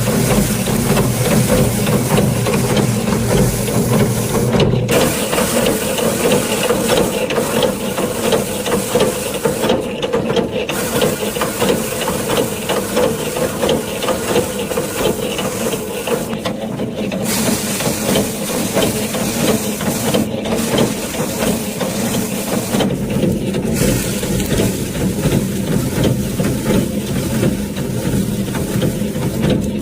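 A rice harvesting machine's engine running steadily under a loud hiss. The hiss drops out briefly several times.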